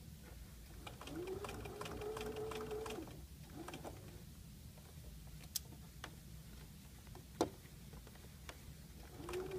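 Electric sewing machine stitching in short runs. Its motor whine rises and then holds steady for about two seconds, with rapid needle ticks, and a brief second burst follows. Two sharp clicks come in the pause, and the machine starts up again near the end.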